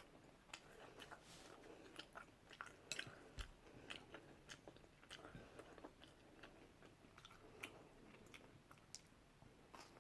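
Faint chewing of food, a person eating with irregular small mouth clicks and crunches.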